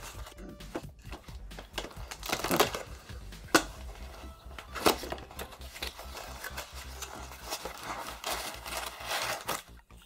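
Rustling and crinkling of a crumpled mailer bag being pulled off a small cardboard box, then the box's cardboard flaps being opened, with a few sharp snaps of packaging about three and a half and five seconds in.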